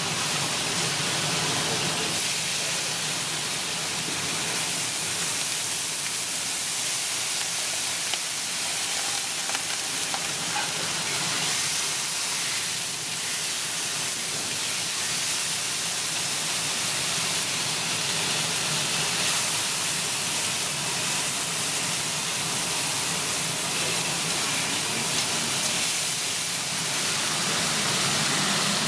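Thin-sliced marinated steak sizzling steadily on a hot flat-top griddle, a dense hiss, with a low hum underneath at the start and again near the end.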